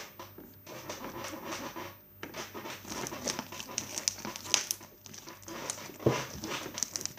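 Slime full of small foam balls being squished and kneaded by hand, giving irregular small crackles, pops and squelches.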